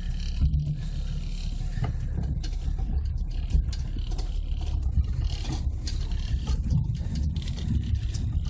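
Nissan Patrol's diesel engine running at low revs, heard from inside the cab, with scattered knocks and rattles as the 4x4 crawls down a rough slope.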